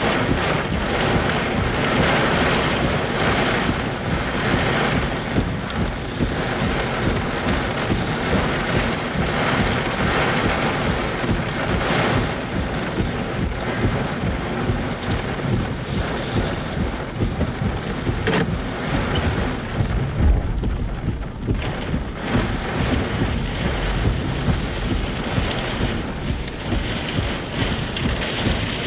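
Heavy rain from a severe thunderstorm beating on a car, heard from inside, a steady dense hiss with a low rumble about twenty seconds in.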